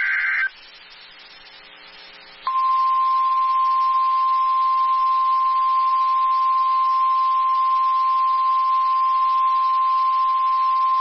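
NOAA Weather Radio alert signal: a brief screech of the digital SAME header burst, a short pause with faint hiss, then the steady single-pitch 1050 Hz warning alarm tone held for about nine seconds. The alarm tone signals that a new warning message, here a tornado warning, follows.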